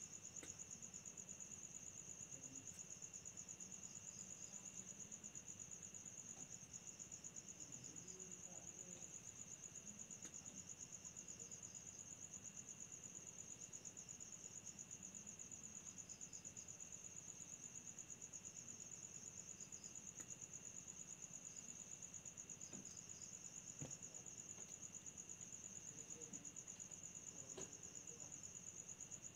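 Faint, steady chorus of crickets trilling at night: one fast, unbroken high-pitched trill with a weaker, lower insect note beneath it.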